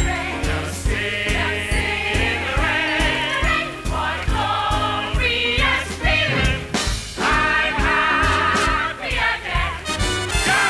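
Musical-theatre show music: an orchestra playing over a steady beat, with ensemble voices singing long, wavering notes.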